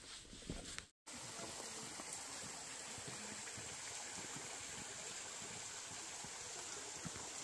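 Steady rush of water flowing along a levada irrigation channel. A few footsteps on the path are heard in the first second, and a brief dropout just before the water sound takes over.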